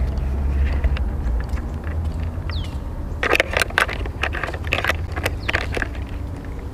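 Steady low rumble, with a burst of sharp clicks and knocks from about three seconds in and a short falling whistle a little before it.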